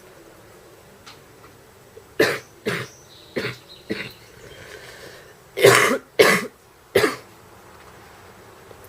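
A woman coughing while smoking, a mild, wet, barking cough. Four short coughs come about two seconds in, then after a brief pause three louder coughs.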